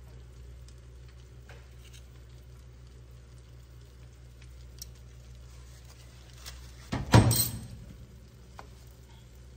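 Eggs frying quietly in a frying pan over a low steady hum. About seven seconds in comes a sharp knock, the loudest sound, with a smaller click just before it.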